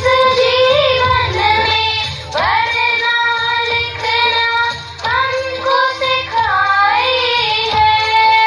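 Recorded song playing: a high singing voice holds long melodic notes that slide up and down between phrases, over a low bass accompaniment.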